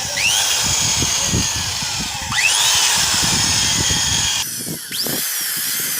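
Electric drill with a 6.5 mm bit drilling out a stripped bolt hole in a motorcycle cylinder head. The motor's whine rises several times as it picks up speed, with a short dip about four and a half seconds in.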